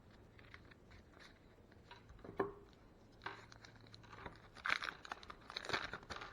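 Baseball card wax pack being handled and opened: the wax paper wrapper crinkling and tearing. One sharp click comes about two and a half seconds in, and the crinkling grows busier through the second half.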